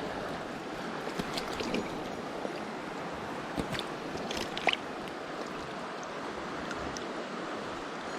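Mountain stream water rushing steadily, with a few brief sharp knocks or splashes about halfway through.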